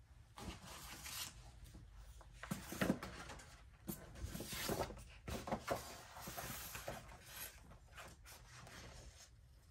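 Paper rustling as an instruction booklet is handled and its pages turned, in irregular bursts with a few sharper snaps, the loudest about three seconds in.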